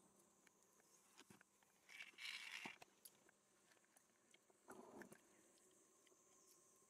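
Near silence: a faint steady high hiss, with a soft rustle about two seconds in and another shorter one near five seconds.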